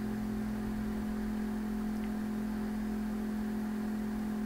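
Steady hum made of a few constant tones over a faint hiss, unchanging throughout.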